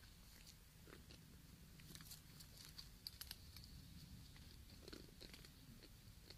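Near silence: faint scattered clicks and crunches from cats right at the microphone, over a low steady hum.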